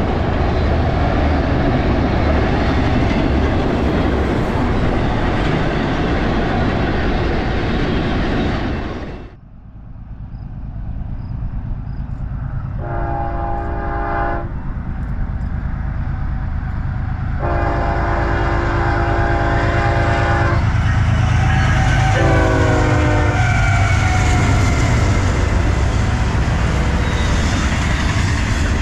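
A loud steady rushing noise cuts off abruptly about nine seconds in. A BNSF train's locomotive then approaches with a building rumble and sounds its air horn: a shorter blast, then a longer one, then a third that drops in pitch as the locomotive passes. The train's rumble stays loud after that.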